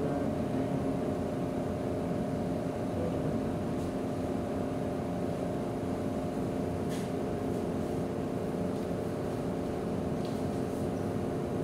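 Steady machine hum holding a few fixed low tones over a faint hiss, unchanging throughout.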